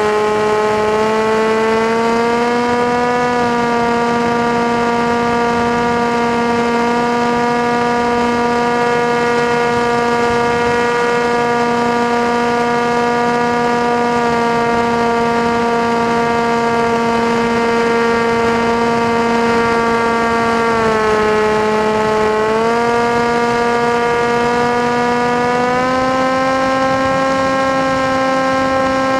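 Electric motor and propeller of an FPV model aircraft whining steadily in flight, its pitch stepping up and down as the throttle changes: up about two seconds in, a brief dip around three quarters of the way through, and up again near the end.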